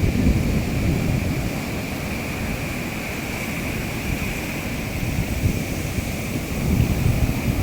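Wind buffeting the microphone over a steady rush of outdoor noise, with a faint steady high drone above it.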